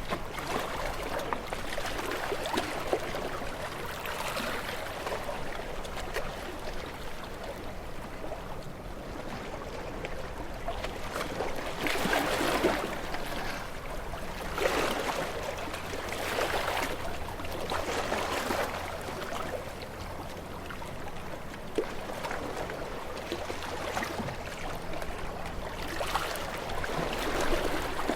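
Ocean waves washing in: a steady rush of water that swells every couple of seconds as each wave breaks and runs up.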